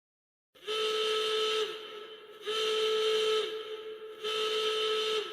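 Emergency alert signal: three steady, horn-like whistle blasts about a second long, repeated roughly every two seconds, each dipping slightly in pitch as it cuts off. The first starts about half a second in, and a faint hiss lies between the blasts.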